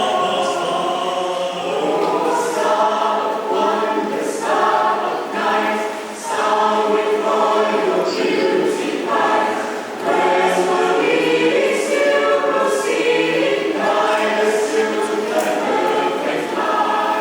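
A choir singing a piece in several voices, in long phrases with brief dips between them about six and ten seconds in.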